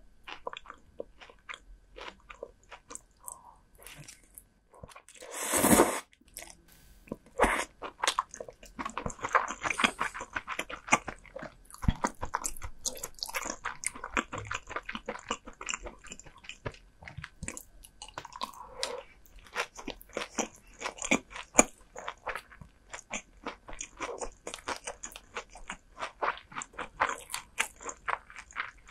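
Close-miked eating: a steady run of crunchy bites and chewing, with moist crackles between them. About six seconds in, a louder burst lasting about half a second is the loudest moment.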